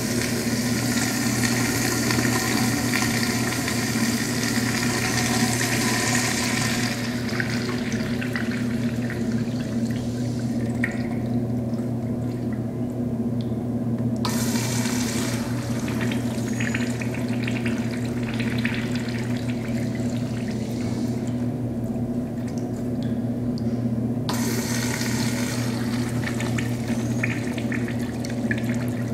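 Urinal flushing: water rushes through the bowl, easing after about seven seconds, then surges again suddenly around fourteen and twenty-four seconds. A steady low electrical hum runs underneath.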